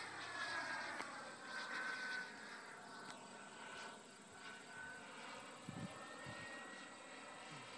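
Turbine engine of a radio-controlled model jet whining faintly and far off in flight. Its pitch drops over the first two seconds, then rises slightly and holds steady.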